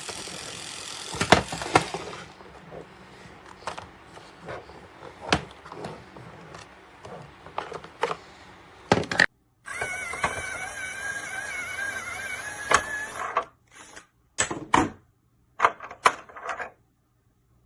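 Hard plastic toy parts clicking and knocking as they are handled and fitted together, with a small motor whirring for about four seconds midway.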